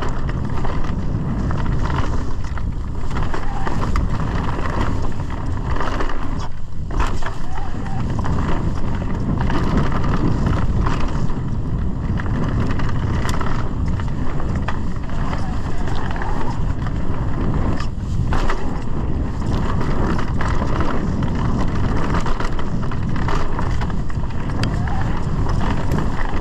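Mountain bike riding fast down a dirt trail: steady wind rush on the helmet or chest camera's microphone mixed with tyre noise over the ground, and scattered sharp knocks and rattles from the bike over rough terrain.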